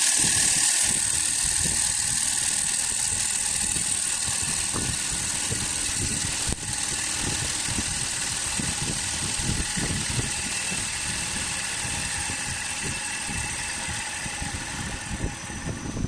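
CNC wood lathe running with its tool cutting the inside of a spinning wooden bowl: a steady machine drone with a constant high hiss and rough scraping of the cut.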